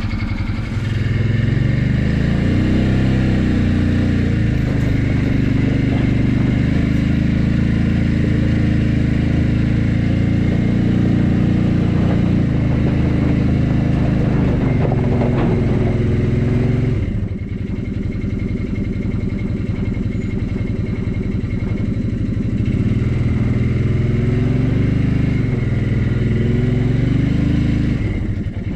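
Engine of the vehicle towing a sawmill, running under load as it pulls away. Its revs climb at the start, hold steady, drop back a little over halfway through, then rise and fall again.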